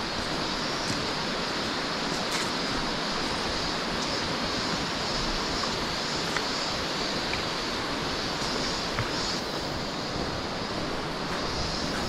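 Steady rushing of a mountain river in the gorge below, a continuous even noise with a faint high hiss and a few light knocks.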